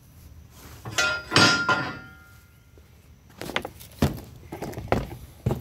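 A loud metal clatter with a brief ringing note about a second in, then several lighter knocks and thuds.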